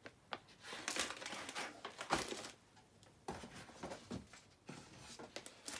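Plastic-wrapped product packets rustling and crinkling as they are handled and rummaged from a cardboard box, with a few light knocks.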